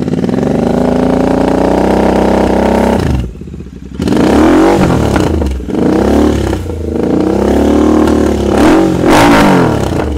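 Royal Enfield Continental GT 650's parallel-twin engine, fitted with aftermarket headers and near-straight-through slip-on mufflers, running loud at high revs. The note holds steady for about three seconds, drops away, then rises and falls over and over as it is revved.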